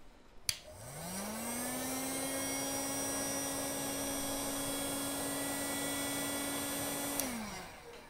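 Heat gun switched on with a click, its fan motor spinning up over about a second to a steady hum with a rushing hiss. Near the end it is switched off with a second click and winds down.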